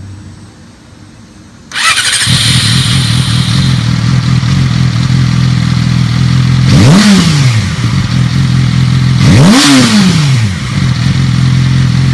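2007 Yamaha R6's inline-four engine, on its old aftermarket exhaust, starting: a short starter whir about two seconds in, then it catches and idles steadily. It is revved twice, a quick rise and fall in pitch, about seven and ten seconds in.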